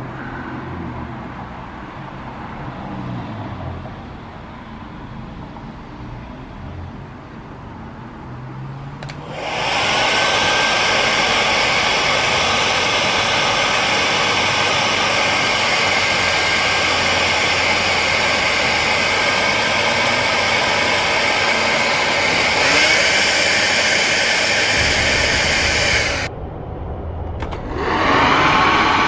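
Loud steady rush of air from a blower, with a motor whine that rises and settles as it starts, driving a small model toroidal axial propeller to spin. It comes on suddenly about nine seconds in after a quieter low rumble, stops abruptly near the end and starts again a second later with the same rising whine.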